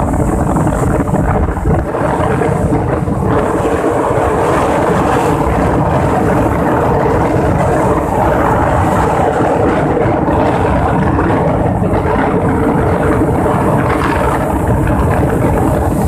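Rough sea surf breaking and washing in continuously, with wind buffeting the microphone in a low rumble.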